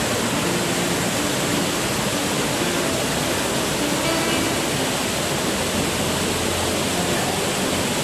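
Steady rushing of a waterfall pouring down a rock face into its plunge pool, an even wash of water noise that does not let up.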